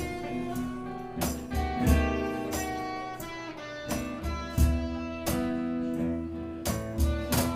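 Live band music: a guitar solo over strummed chords, with sharp strikes on a steady beat.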